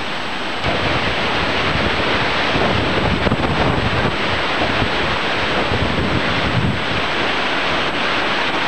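Water of a small mountain stream rushing over boulders into a pool, a steady loud rush that steps up about half a second in, with wind buffeting the microphone.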